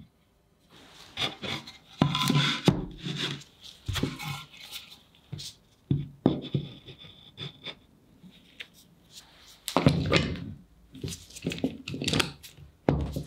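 Irregular knocks, clicks and scrapes of hard parts being handled, starting about a second in.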